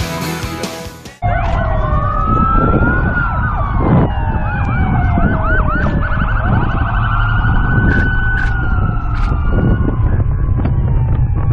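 Several emergency-vehicle sirens sounding together over a low vehicle rumble. They alternate slow rising-and-falling wails with fast yelping sweeps at different pitches.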